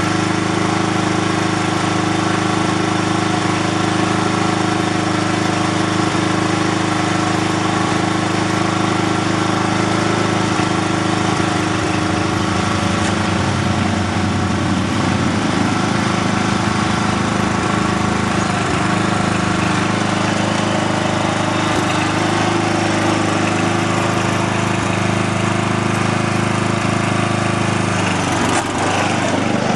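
The 12 hp Briggs & Stratton engine of a 1987 Simplicity SunRunner lawn tractor running steadily. It is fuelled by a new fuel pump with too much flow, so the carburettor's shutoff valve is turned most of the way in to keep it from flooding and running rich. Near the end its pitch dips briefly and recovers as the tractor pulls away.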